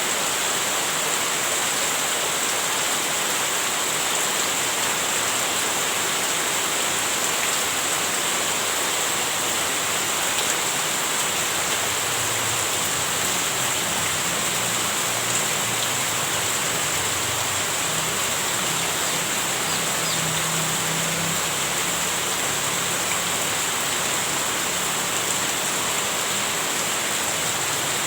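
Heavy rain falling steadily, an even hiss with no let-up. A faint low rumble comes and goes in the middle.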